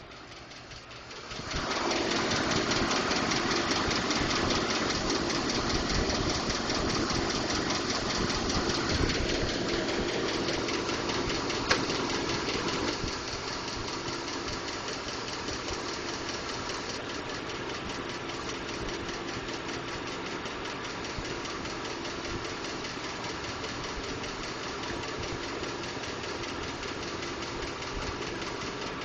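2012 Ford F-150's 5.0L V8 engine starting up about a second and a half in and running at a high idle, then settling to a lower idle around thirteen seconds in, with a rapid ticking or knocking throughout. Ford has diagnosed this tick as normal.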